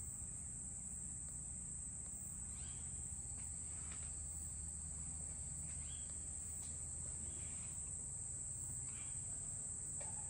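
Insects droning: a steady high-pitched buzz that runs without a break, over a low steady hum, with a few faint short chirps now and then.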